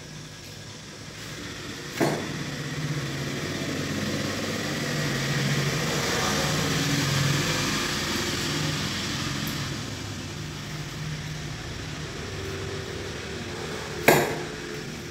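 A motor vehicle passing: engine and road noise swell over several seconds, peak around the middle and fade away. Two sharp knocks, about two seconds in and near the end.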